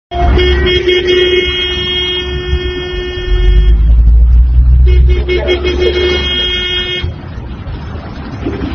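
A horn sounding two long, steady blasts, the first about three and a half seconds, the second about two seconds, over a low rumble.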